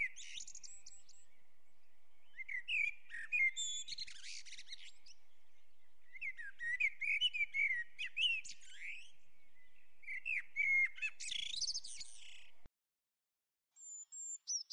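Small birds chirping and twittering in quick, high phrases with short pauses between them. The birdsong cuts off suddenly near the end, and a high whistle slides down in pitch at the very end.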